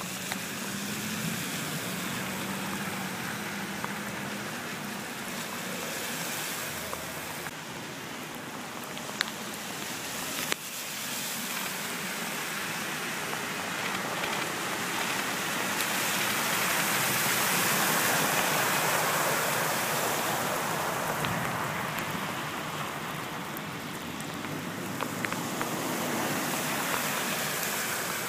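Heavy rain falling on a flooded street, with tyres of passing cars hissing and spraying through the standing water. The noise swells to its loudest a little past the middle as a car passes, then eases.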